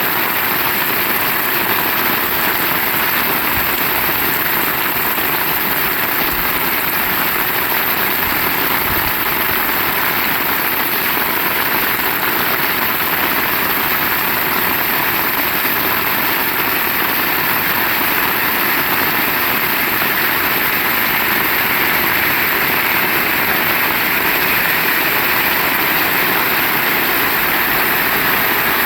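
Heavy rain falling steadily, an even hiss with no breaks or thunder claps.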